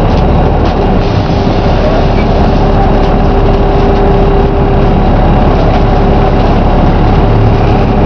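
Volvo B7RLE single-deck bus heard from a passenger seat while driving along: its inline-six diesel engine and drivetrain run loud and steady under road noise, with a steady whine held throughout.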